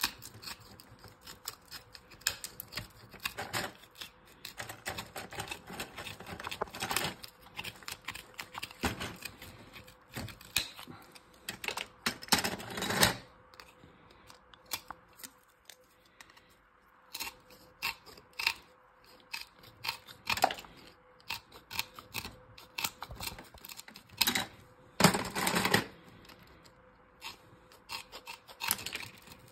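Metal snips cutting the gold-plated edge-connector fingers off RAM sticks: irregular snips and crunches as the blades bite through the circuit boards. The longest crunching cuts come about 12 seconds in and again near 25 seconds.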